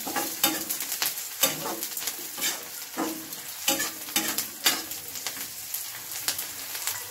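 Flat metal spatula scraping against a steel kadai in repeated, irregular strokes, about one or two a second, while chopped onions, garlic and green chillies fry in mustard oil with a steady sizzle. The onions are being cooked through before the next ingredients go in.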